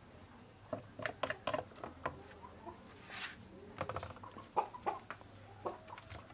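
Scattered light clicks and knocks from food being handled: a spoon working in a plastic bowl and a whole fish being laid on a wooden chopping block. A few short clucking calls are mixed in.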